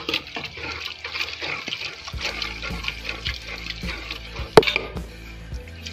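Boiled mustard-green saag being churned and mashed with a wooden ghotna (hand masher) in a metal pot: a continuous wet squelching and sloshing. There is one sharp knock about four and a half seconds in.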